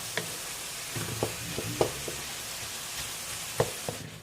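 Ground beef, garlic, onions and tomatoes sautéing in oil, sizzling steadily while being stirred, with a utensil knocking against the pan several times. The sizzle drops away near the end.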